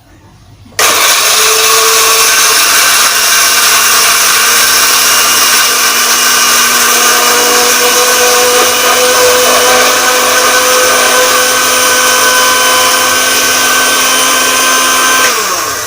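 Electric kitchen blender switched on about a second in, running loud and steady as it grinds bait ingredients, then switched off near the end, its motor spinning down with a falling hum.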